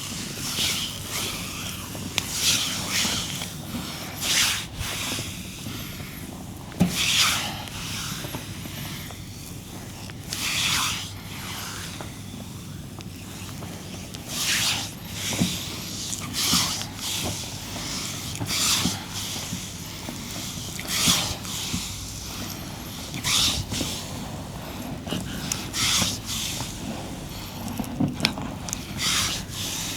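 Hands rubbing over bare skin in a massage, a string of short hissing strokes coming every second or two, with a few soft knocks in between.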